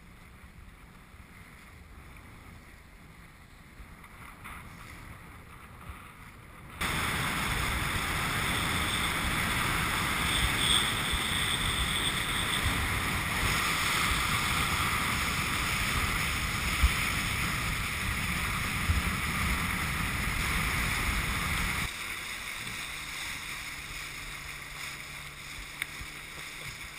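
Wind on the microphone and water rushing past a boat under way. The noise jumps up suddenly about seven seconds in and drops back about 22 seconds in, after which a faint low steady hum is heard under it.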